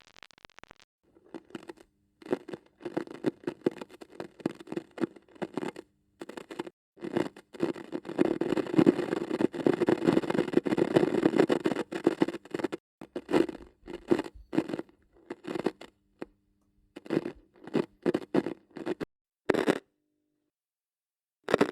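Electrical crackling and static: irregular bursts of crackle, at times over a faint steady hum, coming as a series of separate takes with short silent gaps between them.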